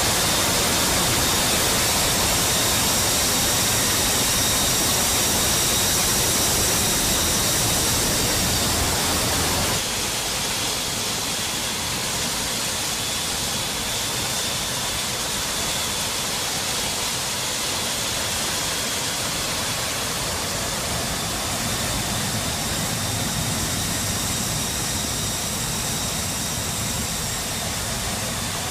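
Steady rush of wind and turbofan engine noise through the open paratroop door of a C-17 in flight, with a faint high engine whine over it. The noise drops a little about ten seconds in and then holds steady.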